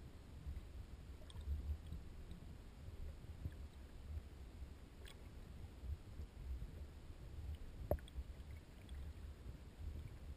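Muffled, low rumbling of river water moving around an underwater camera housing, with a few faint clicks and one sharper knock about eight seconds in.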